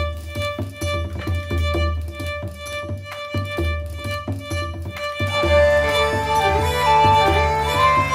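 Background music: a violin-led tune over a steady pulsing beat, growing louder and fuller with a held melody about five seconds in.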